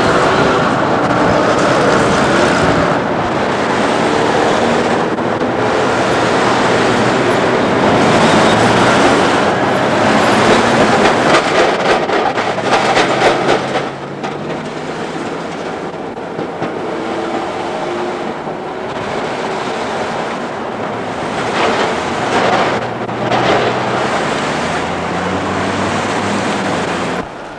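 Melbourne tram passing at a street intersection, its wheels clattering over the rails with a run of quick clacks; the noise drops off sharply about fourteen seconds in, leaving a steady wash of street traffic.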